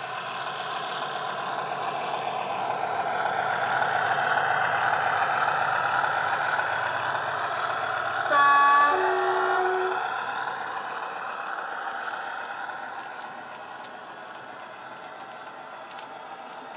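Sound from a model Class 50 diesel locomotive's DCC decoder, played through an EM1 and a megabass speaker: the locomotive's engine sound grows louder as it approaches and fades after it passes. A short two-tone horn sounds about eight seconds in.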